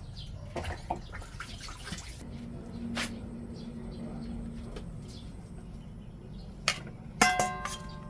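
Scattered kitchen clinks and taps, then near the end a sharp clink of glass that rings on clearly.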